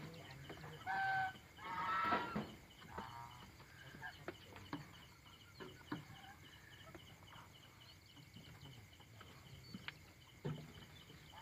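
Domestic chickens roosting at night giving two short, soft clucking calls about a second apart, with a fainter call just after. Then only faint scattered clicks and rustles.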